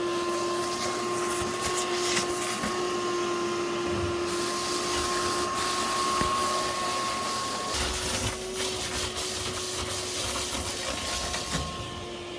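Vacuum cleaner motor running steadily, a constant whine over rushing air, with extra low rumble from about eight seconds in.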